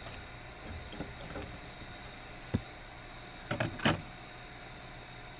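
A sharp click about two and a half seconds in, then a short clatter of knocks near four seconds, as gear is handled against the side of a boat, over a steady background with a thin high insect-like tone.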